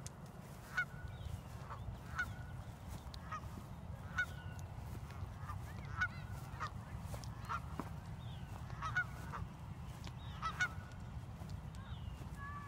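A flock of Canada geese honking, about a dozen short calls coming irregularly, roughly one a second, over a steady low rumble.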